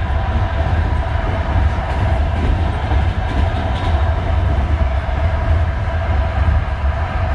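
Passenger train running at speed, heard from inside the carriage: a steady low rumble with wheel-on-rail noise.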